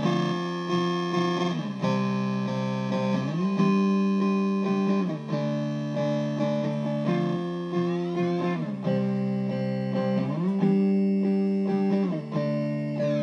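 Sustained, sliding instrument notes, tagged as electric guitar, playing a repeating phrase through an Imprudence Engine (Sonic Titan clone) sample rate reducer pedal, giving a crushed, digitally degraded tone. The hand is on the Sample Rate and Blend knobs throughout, so the crushing effect is being adjusted as it plays.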